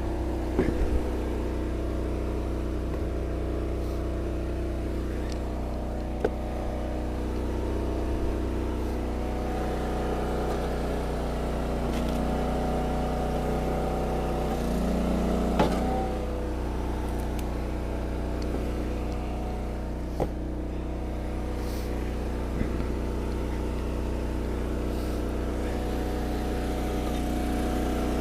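Eastonmade 22-28 wood splitter's engine running steadily, with sharp cracks and knocks now and then as rounds split on the 4-way wedge. Around the middle the engine's note changes for a second or so under load, ending in a crack.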